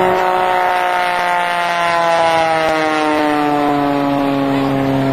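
Oracle Challenger aerobatic biplane's piston engine and propeller running at high power as the plane pulls up into a vertical climb, a steady drone of several tones sliding slowly down in pitch.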